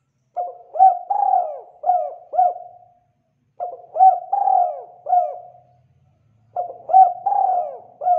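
Spotted dove cooing: three repeated phrases of several coo notes, each phrase about two seconds long, with short pauses between them.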